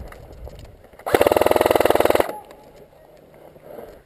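Airsoft electric rifle firing one full-auto burst about a second long, starting about a second in: a fast, even rattle of shots over the gearbox's buzz.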